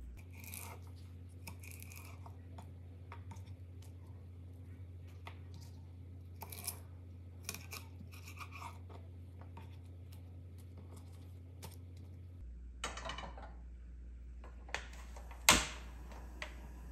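Kale leaves being torn from their stems and a knife cutting through the stems on a wooden cutting board: light tearing and small taps and scrapes. Near the end a portable gas stove's burner lights with one loud sharp click.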